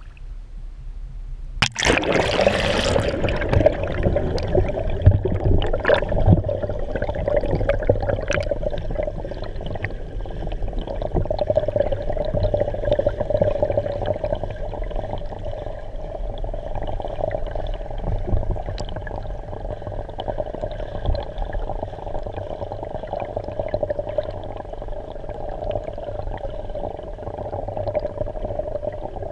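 A camera plunges under the water with a splash about two seconds in, then a steady, muffled underwater rush with a low hum and faint clicks as it swims through a clear spring.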